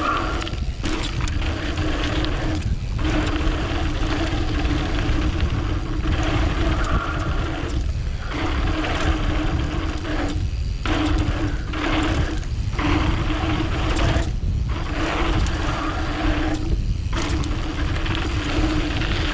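Mountain bike descending a dirt downhill trail: steady tyre rumble and wind noise, with a steady buzzing tone that cuts out briefly many times.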